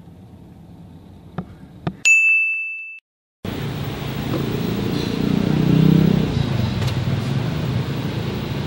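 A single bright bell-like ding rings and fades for about a second, then cuts off into a brief dead silence. After the silence comes steady street ambience with a low traffic rumble that swells about halfway through.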